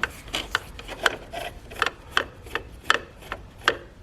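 A screwdriver working a headlight mounting bolt loose: a series of light, irregular clicks and taps, about three a second.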